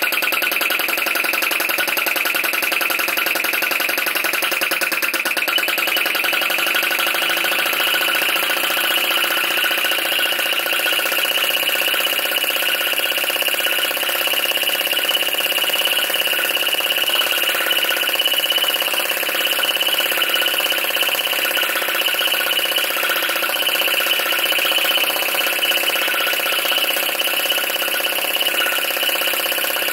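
PM Research Solar Engine No. 3 flame-licker (vacuum) engine running steadily at speed, a rapid even mechanical clatter from its piston and flame valve as the spirit-burner flame is drawn into the cylinder.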